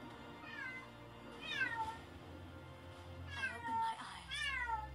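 A domestic cat meowing four times, each call a wail that falls in pitch. These are lonely meows from a cat left home alone.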